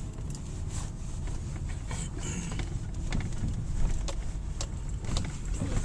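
Car driving slowly over rutted, packed snow, heard from inside the cabin: a steady low rumble with scattered knocks and clicks as the tyres and body jolt over the ruts.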